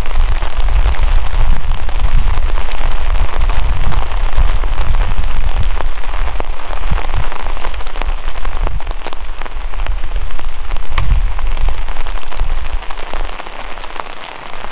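Rain falling steadily: a dense patter with many distinct sharp drop taps over a deep low rumble, fading out near the end.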